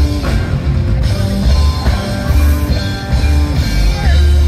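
Live reggae band playing loudly through a concert PA, with a heavy bass line under drums and keyboards.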